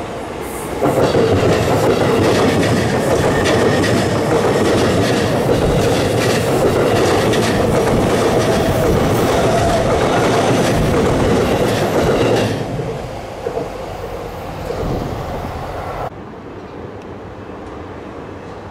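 JR Chuo Line E233-0 series electric train passing at close range: loud running noise of wheels on rail with repeated clacks. It is loudest from about a second in until about twelve seconds in, then dies away. Near the end a quieter, steady sound of a second train further off takes over.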